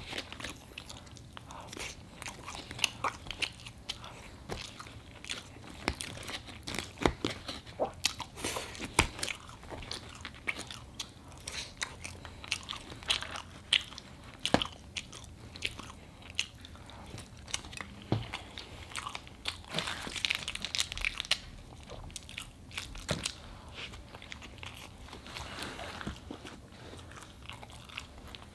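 Close-miked chewing and biting of a burger and fries: a run of irregular wet clicks, crunches and smacks of the mouth.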